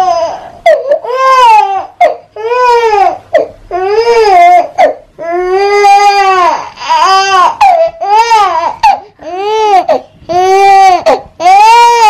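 Infant crying loudly: a run of about ten cries, each rising then falling in pitch, with short gasps for breath between them.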